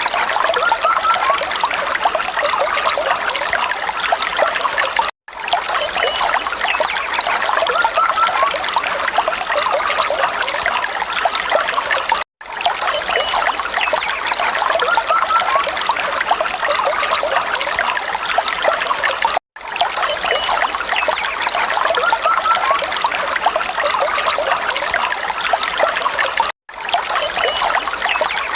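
Falling water trickling and splashing steadily, a continuous bright patter with little low rumble. It cuts out for an instant about every seven seconds, where the recording loops.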